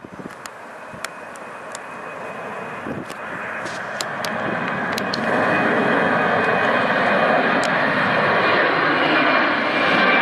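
Jet airliner's engines growing steadily louder over about six seconds as the aircraft approaches, then holding at a loud, steady level with a high whine over the engine noise. A few faint sharp clicks in the first half.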